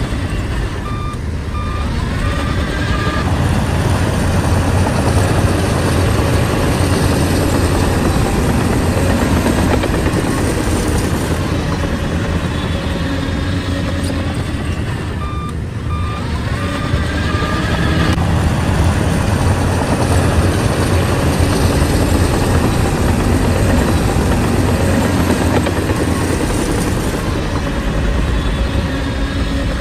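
Shantui bulldozer's diesel engine running loudly and steadily, swelling under load at about 4 s and again after about 18 s. A backup alarm beeps in short runs near the start, around the middle and near the end.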